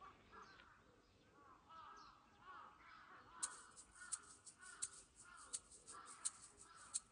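Faint bird calls, a run of short arching notes repeated over and over. From about halfway through, sharp ticks come in at an uneven pace of about two a second.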